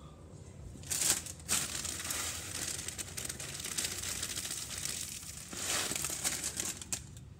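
Clear plastic cereal bag crinkling as it is handled, with chocolate puffed-rice cereal pouring from it onto a plate. The rustling starts about a second in, with louder bursts early and again near the end.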